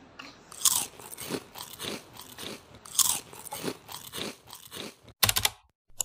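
A beagle chewing on a small object, a steady series of crunching bites about every half second. Near the end a short, loud burst of another sound cuts in.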